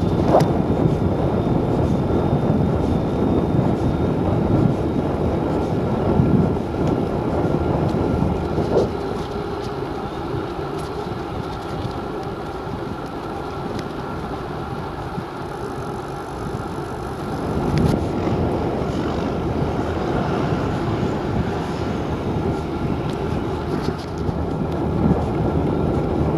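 Wind buffeting the microphone of a camera on a moving bicycle, with road noise from the ride: a steady, rumbling noise that eases off for several seconds in the middle.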